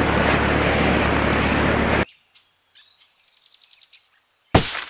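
Propeller aircraft engines droning loudly with a rush of wind, cutting off abruptly about two seconds in. Faint bird chirps follow, then a sudden loud burst near the end.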